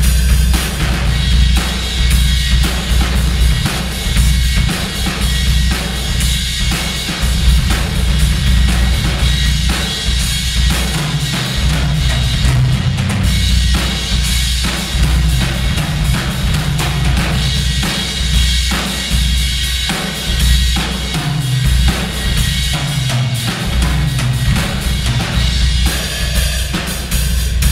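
Acoustic drum kit played in a steady groove, with bass drum, snare and continuous cymbals, in a room that echoes too much.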